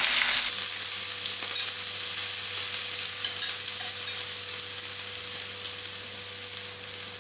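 Sliced onions sizzling in hot oil in a stainless steel pot, stirred now and then with a metal spoon. The sizzle slowly gets quieter toward the end.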